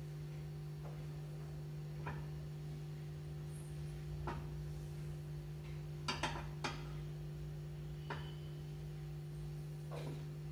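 Mustard seeds popping in hot ghee in a steel pan: scattered single sharp pops every second or two, with a quick cluster of three about six seconds in, over a steady low hum. The spluttering is the sign that the ghee is hot enough for the tempering.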